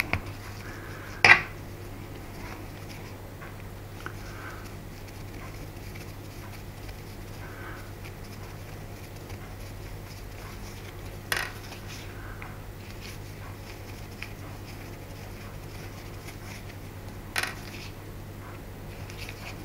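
Small metal clinks of a hex driver and screws as the back-plate screws of an SC53 two-stroke glow engine are undone: three sharp clicks, about a second in, about eleven seconds in and near the end, with fainter ticks between, over a steady low hum.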